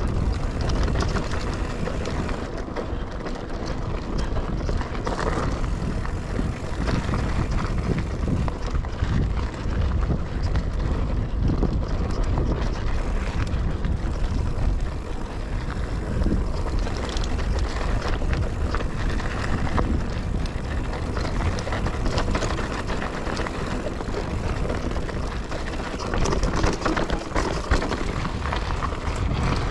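Calibre Triple B mountain bike ridden along a dirt trail: wind buffets the camera microphone while the tyres rumble over the ground and the bike rattles with frequent clicks and knocks.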